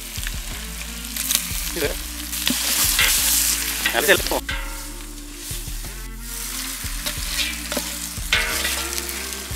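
Raw mutton pieces sizzling in hot oil and masala in a large cooking pot while being stirred with a ladle, with short knocks of the ladle among the sizzle. The meat is frying in the masala before water is added. The sizzle is loudest in the middle and drops off about four and a half seconds in.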